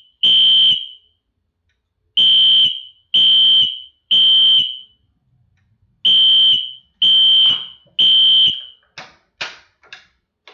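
Wheelock NS24MCW fire alarm horn strobe sounding in the temporal-three (code 3) evacuation pattern: loud, harsh horn blasts in groups of three, each group about four seconds apart. It stops after the third group, followed by a few short knocks near the end.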